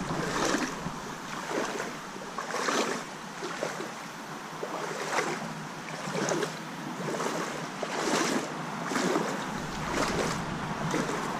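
Boots wading through shallow creek water, a splashing swish with each step about once a second.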